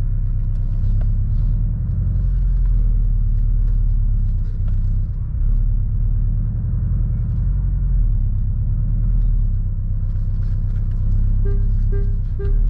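Porsche 718 Boxster's turbocharged flat-four engine running at low revs as the car reverses slowly, a steady low rumble. Near the end the parking-sensor warning starts beeping, about three beeps a second.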